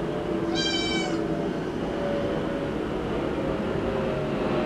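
A young black kitten gives one short, high-pitched meow about half a second in, over a steady background drone.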